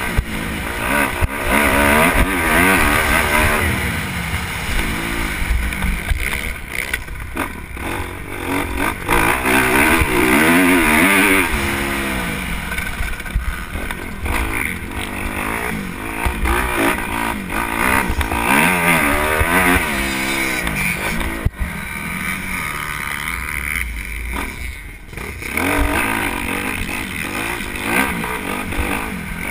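Dirt bike engine on a motocross track, revving hard and shifting repeatedly, its pitch climbing and falling again and again with short drops where the throttle comes off.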